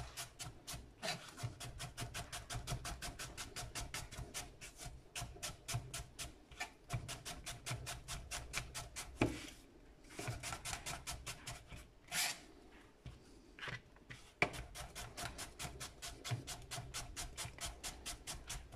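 Chef's knife thinly slicing peeled apple quarters on a cutting board: quick, even taps of the blade through the apple onto the board, about five a second, with a couple of short pauses.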